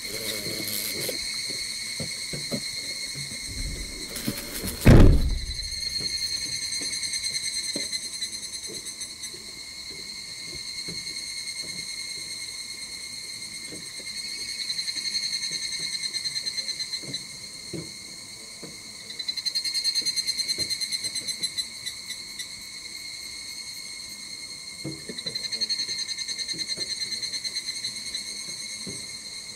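Insects chirring in a steady chorus, a shrill high tone that swells and fades in waves every few seconds. A single loud thump about five seconds in.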